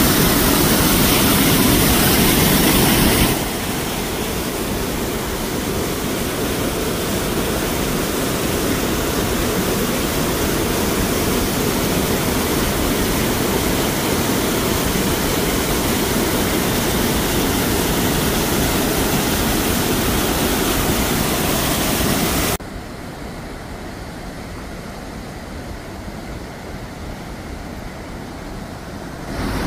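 Rhine Falls' rushing water and rapids, a steady even noise. It drops abruptly in level about three seconds in, and again, duller, about three-quarters of the way through, then comes back up just before the end.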